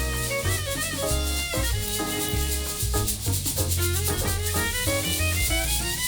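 Background music: an upbeat instrumental track with plucked and bowed-sounding melody notes over a steady bass and a shaker keeping a quick rhythm.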